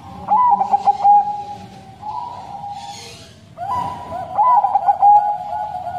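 A caged zebra dove of the Thai-bred 'perkutut Bangkok' type singing its cooing song: two phrases, one just after the start and one about three and a half seconds in, each a quick run of short staccato coos that settles into longer held notes.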